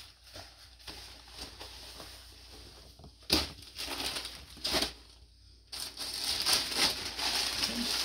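Plastic bag crinkling and rustling as clothing is handled and pulled out, with two sharp crackles about three and four and a half seconds in and steadier rustling over the last couple of seconds.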